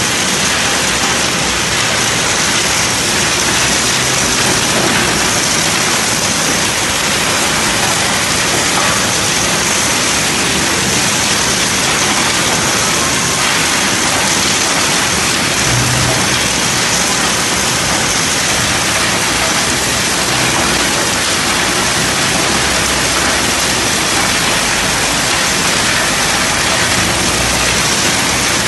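Coal screening plant and belt conveyor running, with small screened coal lumps moving along the belt: a loud, steady rushing noise.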